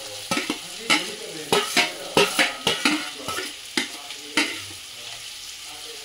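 Chopped onions sizzling as they go into hot oil and butter in a metal kadhai, with a metal ladle scraping and knocking against the pan. The knocks stop about four and a half seconds in, leaving a softer sizzle.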